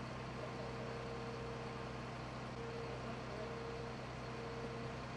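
Fire engine running at a standstill: a steady low engine hum under an even hiss, with a faint higher whine that comes and goes.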